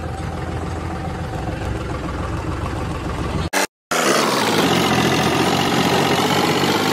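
Tractor's diesel engine running with a low, steady sound. After a brief cut to silence about three and a half seconds in, the engine runs louder and higher-pitched as the tractor drives.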